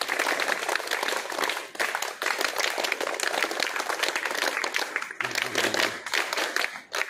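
A group of schoolgirls clapping their hands: dense, irregular applause that eases briefly about five seconds in.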